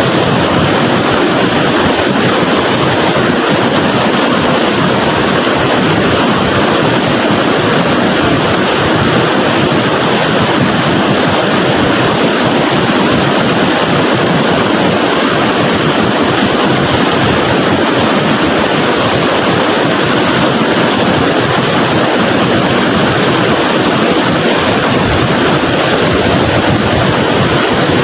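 Floodwater in a swollen river rushing and churning steadily, a loud continuous roar of water that doesn't change.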